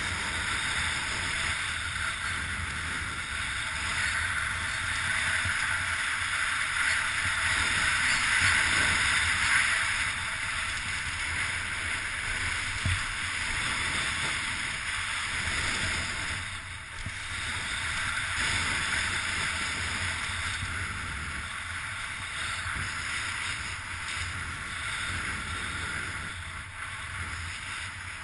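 Steady rushing wind noise on the microphone over a low rumble during a kite-ski run in storm-strength wind, easing briefly a few times.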